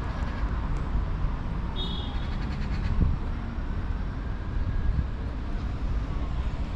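Outdoor ambience: a steady low rumble, with a brief high chirp about two seconds in.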